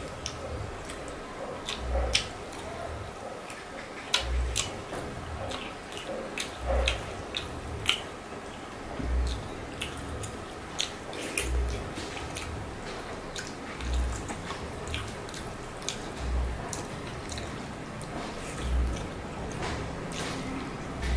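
Wet hand-eating sounds: fingers squishing and mixing rice with egg curry on a plate, with many sticky clicks and mouth smacks. A soft low thump repeats evenly about every two and a half seconds.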